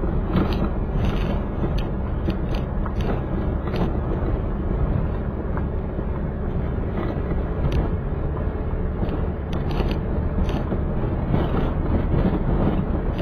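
Car driving on a gravel dirt road: a steady rumble of engine and tyres, broken by frequent clicks and knocks from the loose surface.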